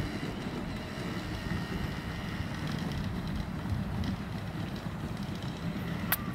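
Quad ATV engine running as it is ridden along a wooded trail, a low steady rumble, with a single sharp click near the end.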